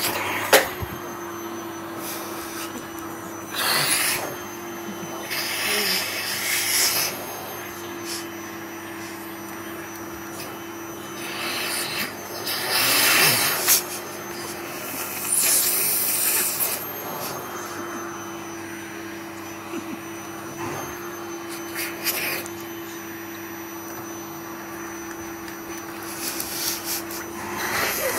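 Vacuum cleaner running with a steady motor hum. Several times a louder rushing noise swells and fades over a second or two.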